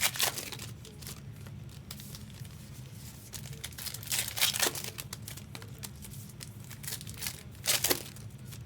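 Foil trading-card pack wrappers crinkling and tearing as packs are opened by hand, with louder bursts about half a second in, around four seconds in and near the end.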